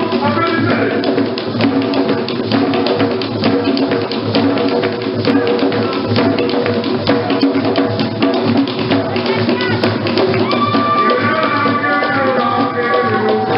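Live Caribbean drum music: hand drums played in rapid strokes with other percussion. Voices join in singing over the drumming about ten seconds in.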